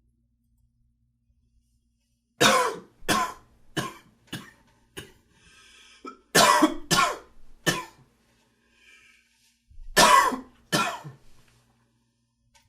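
A man coughing in three fits: five coughs in quick succession, then three, then two, with short pauses between the fits.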